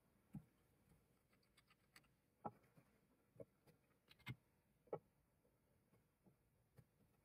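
Faint, scattered clicks and taps, about five sharper ones among fainter ones, as a metal pommel cap and black spacers are slid off an old bowie knife's threaded tang and set down on a wooden bench.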